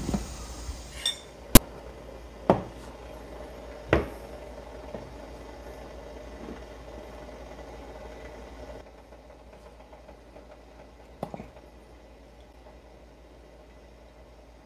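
A fork, a plate and a bamboo steamer being handled: a few separate sharp clicks and clinks, the loudest about a second and a half in, over a steady hiss that drops away about nine seconds in.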